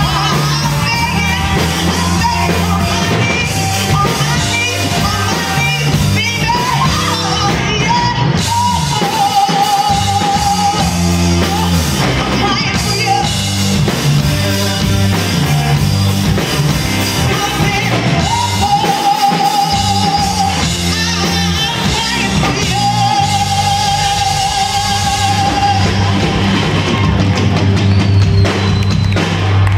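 Live rock band playing loud: drum kit, distorted electric guitars and bass, with a woman's lead vocals and several long held high notes.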